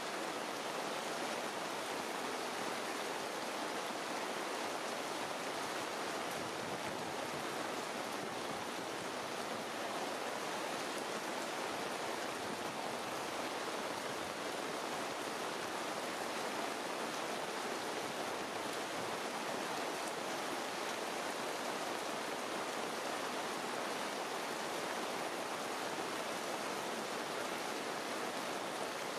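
Steady rain falling in leafy trees: an even hiss with no distinct drips.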